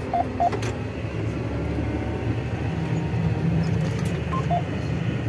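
A John Deere tractor's diesel engine runs steadily under load, heard from inside the cab, while it turns at the headland pulling a seed drill. A few short beeps sound near the start and again late on.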